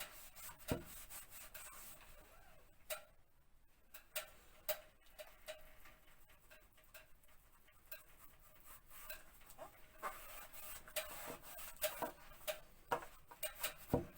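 Wallpaper being rubbed and pressed back down along a lifted joint, a faint rubbing with scattered small clicks and taps that grow more frequent in the last few seconds.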